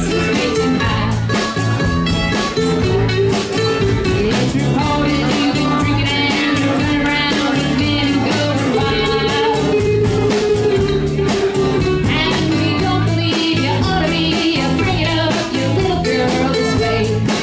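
Live acoustic band playing: strummed acoustic guitars and a mandolin over a drum kit keeping a steady beat.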